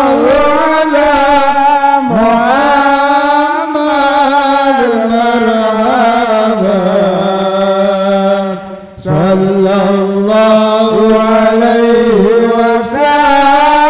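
A man's voice chanting an Arabic devotional song of blessings on the Prophet (salawat) into a microphone. He holds long notes with bending, ornamented melodic runs and takes a short breath about nine seconds in.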